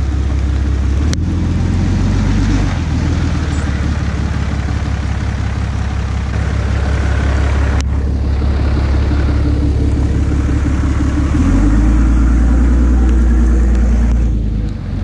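A Ram heavy-duty pickup's Cummins turbodiesel running and pulling as the truck drives past. The engine note steps up once early on and again, louder, about three seconds from the end, then falls away. Two sharp clicks stand out over it.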